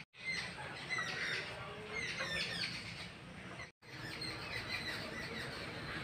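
Small birds chirping: a run of short, quick chirps sliding down in pitch, several a second. The sound cuts out for a moment just under four seconds in.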